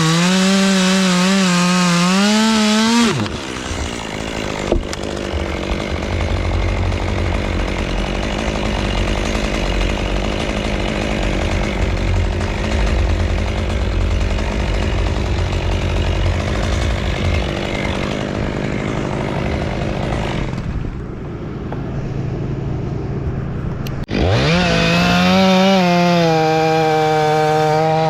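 Chainsaw running at full throttle, its pitch wavering, then dropping off about three seconds in. A rough, noisy stretch with a low rumble follows, and near the end the saw revs back up with a rising whine and runs steady at high speed.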